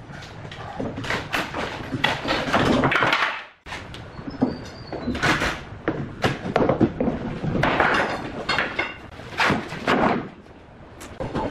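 Wooden formwork being pried off the underside of a cast concrete tabletop with a steel pry bar: irregular knocks, scrapes and wooden boards clattering down, with a brief break about three and a half seconds in.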